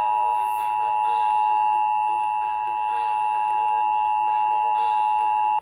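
Emergency Alert System two-tone attention signal, two steady tones sounded together, loud and unbroken, cutting off abruptly at the end. It marks the start of an emergency alert, here a severe thunderstorm warning.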